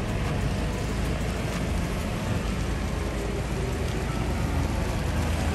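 Steady hiss of rain with the low, even running of a fork loader's engine as it moves a car on its forks.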